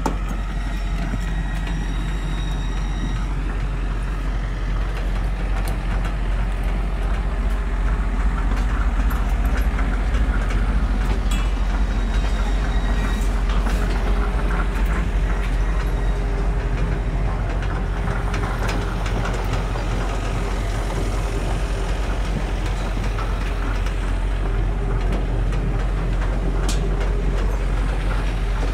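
Diesel engine of a tracked excavator running steadily: a continuous low drone with a few light clanks over it.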